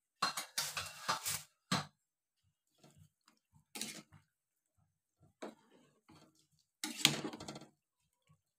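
A metal ladle stirring chicken and sponge-gourd soup in a stainless steel pot, scraping and sloshing in short bursts. The loudest bursts come in the first second and a half and again about seven seconds in.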